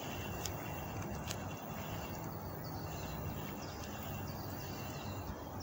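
Outdoor summer ambience: a steady low background rumble, with small birds chirping on and off through the middle and a thin, steady, high insect-like whine. Two sharp ticks come in the first second or so.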